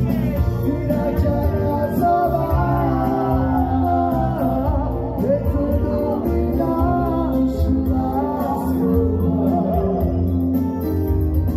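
Male singer singing live into a handheld microphone, his ornamented melody line bending up and down, with electronic keyboard accompaniment.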